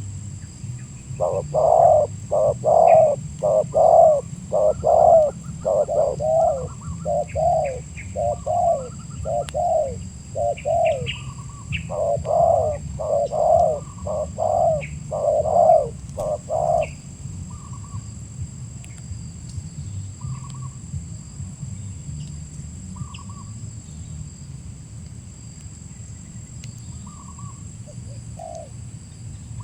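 Spotted dove (tekukur) cooing: a long run of about twenty evenly repeated coos that stops about two-thirds of the way through, followed by faint chirps of other birds.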